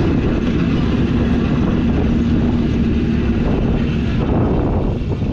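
1000 cc superbike engine running at steady revs under a dense low rumble; its steady note fades about four seconds in.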